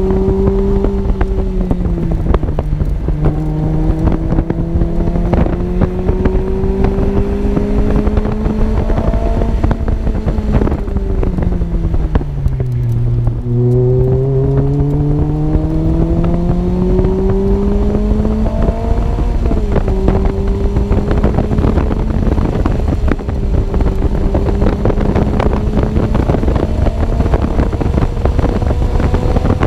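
Lotus Elise 111R's 1.8-litre Toyota four-cylinder, breathing through a Larini Stage 2 aftermarket exhaust, running hard at track speed: its pitch rises under power, steps down with a gear change about a second in, falls away as the driver eases off around 11 to 13 seconds, then climbs steadily again until another upshift around 19 seconds. Heavy wind buffeting on the uncased camera microphone rushes underneath throughout.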